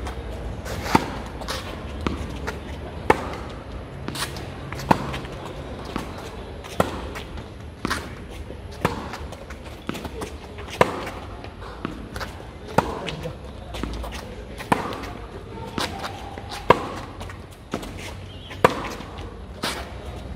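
Tennis balls on a corded tennis trainer struck with rackets in an alternating forehand drill: sharp pocks about once a second, with softer knocks between them.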